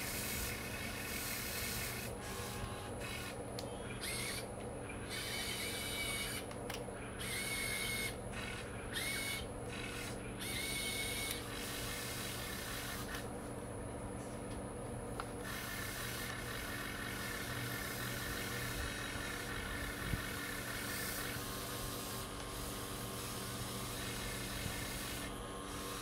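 Electric motors and gear drives of a Huina 1580 remote-control toy excavator whirring and whining. In the first half there are several short movements, each starting and stopping with a brief rise in pitch; later comes a longer, steadier run.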